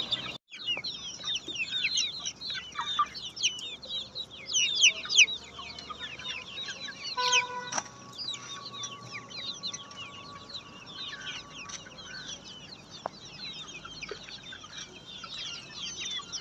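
A brood of black Australorp chicks peeping non-stop, a dense chorus of short, high, falling cheeps. A brief pitched tone sounds a little over seven seconds in.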